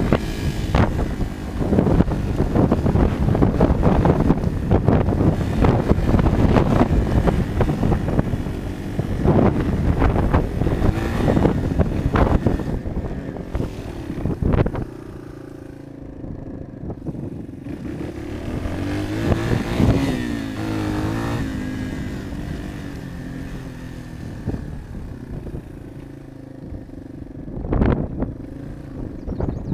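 Yamaha XT225's single-cylinder four-stroke engine running as the motorcycle is ridden along a rough dirt trail, heard through wind buffeting and knocks on the microphone. For the first half the noise is loud and choppy; in the second half it is quieter and the engine's pitch rises and falls, with one sharp loud knock near the end.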